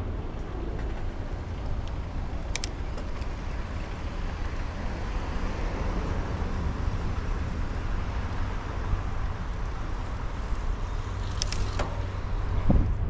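Steady wind rumble on the microphone and tyre noise of a bicycle ride, with a sharp rattle about two and a half seconds in and more clicks and a thump near the end.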